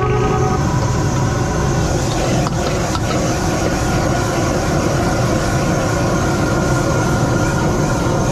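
High-output gas wok burner running full blast under a carbon-steel wok, a loud steady rush of gas and flame, while egg fried rice is stir-fried. A couple of sharp clanks about two and a half and three seconds in, a ladle striking the wok.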